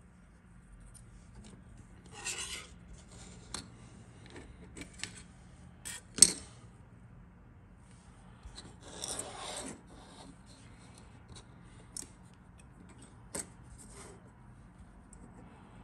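Injection-moulded plastic model kit parts handled and slid over a cutting mat: two brief spells of scraping, around two and nine seconds in, and scattered clicks and taps, the loudest a sharp tap about six seconds in.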